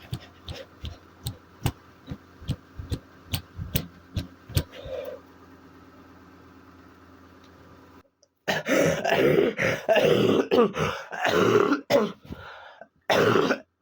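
A glass thermometer being shaken down, giving a run of sharp regular clicks at about three a second for around five seconds. About eight seconds in comes a loud bout of harsh coughing and throat clearing from a man with a feverish cold, which is the loudest sound.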